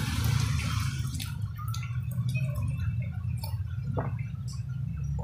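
A person drinking water from a plastic cup, with gulps and swallows close to the microphone and short wet clicks. A steady low hum runs underneath.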